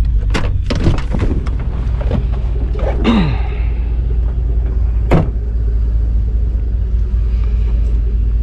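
Pickup truck running with a steady low drone, with a few sharp knocks and clunks, the loudest about five seconds in.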